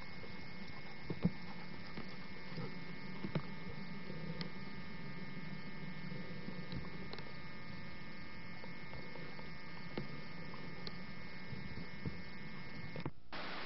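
Steady electrical hum and whine with a few faint clicks, the recording equipment's own noise on an old camcorder tape. It cuts out briefly near the end, then comes back as a louder hiss.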